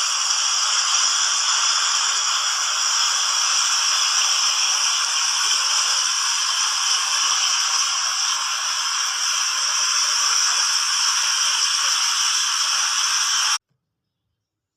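Water fountain jets splashing, a steady hiss, cutting off suddenly near the end.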